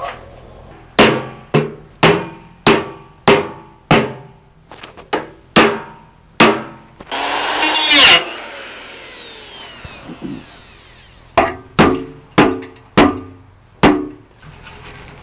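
Sharp metallic strikes on a steel drum, each ringing out briefly: about ten at a steady pace, then a cordless power tool grinds against the metal for about a second with a screech that builds in loudness, then about seven more strikes near the end.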